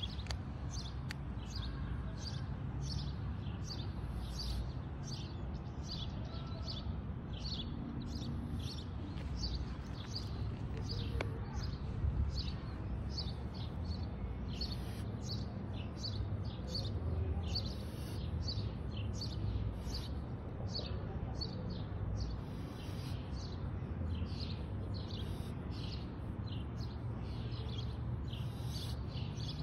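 A bird chirping over and over, about two or three short high chirps a second, over a low steady background rumble.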